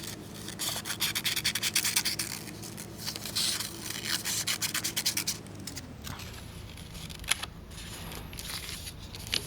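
Scissors cutting construction paper in a run of quick small snips, with the paper rubbing as it is turned. The snipping stops about halfway through, leaving only a few single clicks.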